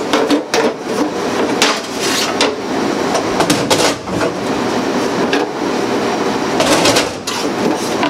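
Metal charbroiler grates being lifted off and set down, with irregular sharp metallic clanks and knocks over a steady hum.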